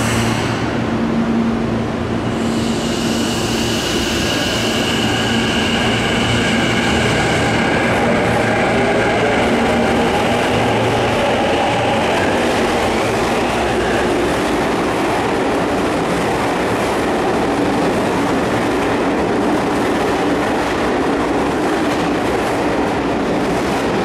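Tokyu 5050-series electric train pulling away from an underground platform: its traction motors whine in steady high tones, then in a rising whine as it speeds up, over the continuous rumble and clatter of the wheels on the rails.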